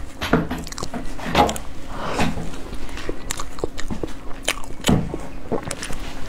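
Biting and chewing a soft bursting-filling tofu-skin roll (baojiang fupi): an irregular string of mouth clicks and smacks.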